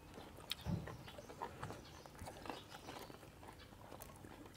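Faint chewing and lip-smacking of people eating with their mouths full, with scattered small clicks and a soft low thump a little under a second in.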